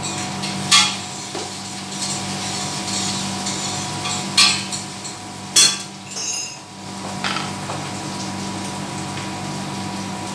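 Glass spice jars and a metal spoon clinking and knocking against the counter as ground spice is spooned out, with three sharp knocks and a short rattle, over a steady fan hum.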